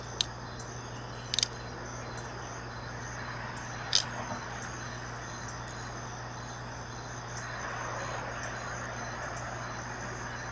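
Crickets or other insects chirping steadily in the background, with a few sharp clicks near the start, about a second and a half in, and a louder one about four seconds in.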